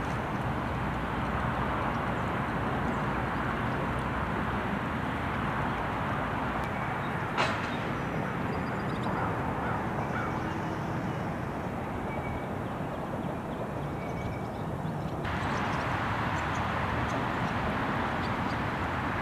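Steady outdoor background rumble with a few faint bird chirps, and one sharp click about seven seconds in. The background changes a little about three-quarters of the way through.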